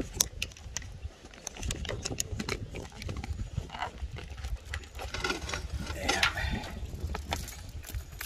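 Handling noise on a hand-held phone microphone: scattered sharp clicks and rubbing over a low rumble. Near the end, keys jingle as a motorcycle helmet is lifted and pulled on.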